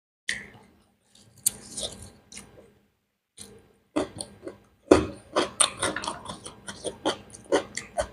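Close-miked chewing of beef biryani: wet mouth smacks and clicks, scattered at first, then coming quickly and steadily from about four seconds in.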